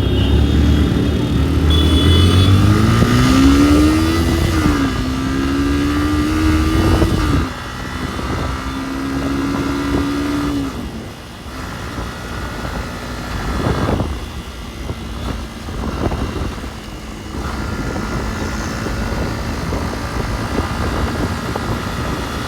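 Motorcycle engine accelerating hard: its note climbs, drops at a gear change about five seconds in, climbs again and holds, then falls away after about eleven seconds as the throttle is closed.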